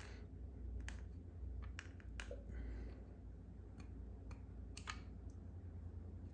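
Faint, sharp metal clicks, several at irregular intervals, as a piston-pin circlip is pried and pressed into its groove in the piston's wrist-pin bore with a small screwdriver.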